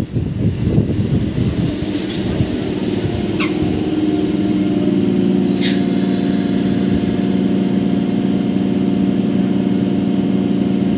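Stationary EMU local train giving off a steady electrical hum that swells about three seconds in and then holds even. There are a few voices at the start, a brief high chirp, and a short sharp hiss a little later.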